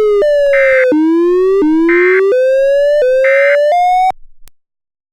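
Electronic siren-like alert tone: one buzzy synthesized pitch that slides upward in short steps, with a higher pulsing burst about every second and a half. It cuts off suddenly about four seconds in.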